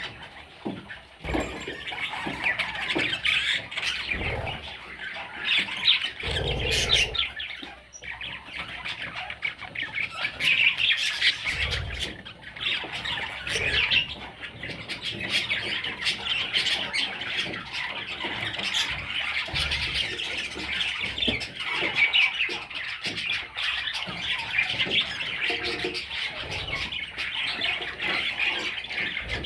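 A group of budgerigars chattering and warbling without pause, with frequent sharp squawks cutting through.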